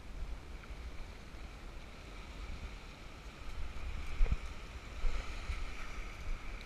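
Wind rumbling on the microphone over small waves washing onto a pebble shore, with a single sharp knock about four seconds in.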